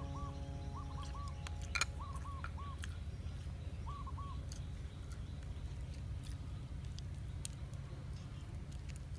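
A bird calling in short repeated notes, in quick groups of two to four, for the first four seconds or so, over a steady low rumble, with scattered light clicks.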